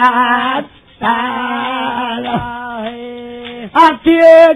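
A male voice singing a Maithili devotional jhumar song in long held notes with brief breaks. A few sharp clicks and a louder sung phrase come near the end.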